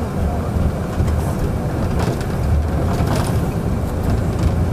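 Steady low rumble of a tour bus's engine and road noise, heard from inside the cabin while it drives.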